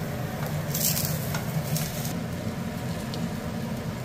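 Food sizzling in a hot pan, with a louder hiss of sizzling about a second in that lasts about a second, over a steady low rumble.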